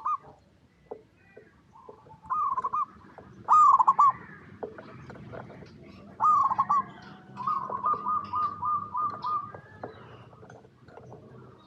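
Zebra dove (perkutut) cooing: short hooked coo phrases repeated several times, then near the middle a longer run of quick, evenly repeated coo notes.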